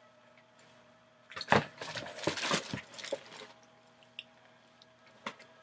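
A short burst of rustling and small clicking clatter, like objects being handled and set down, with a couple of single clicks later on.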